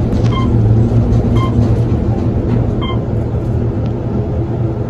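Hotel elevator car running with a steady low rumble, and three short electronic beeps about a second or so apart in the first three seconds.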